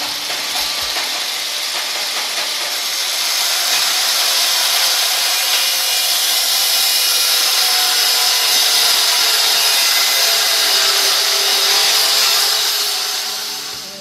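Power grinder's abrasive disc grinding metal with a steady, high hiss, fading out near the end.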